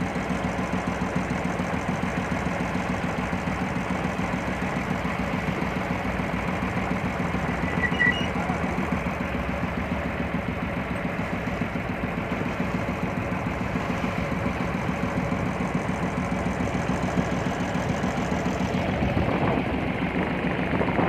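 A launch's inboard engine running steadily under way, with a fast, even beat.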